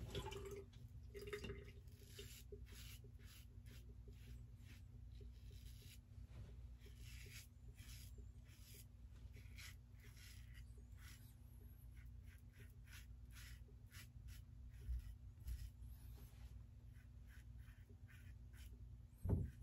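Faint, quick scratchy strokes of a stainless steel open-comb safety razor cutting lathered stubble on the neck, shaving against the grain. A brief low sound about a second before the end.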